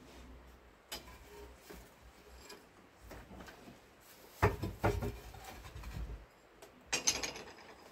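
Kiln shelf being lifted out of an electric kiln: ceramic clunks and scrapes, with a cluster of louder knocks about four and a half seconds in and another sharp knock about seven seconds in.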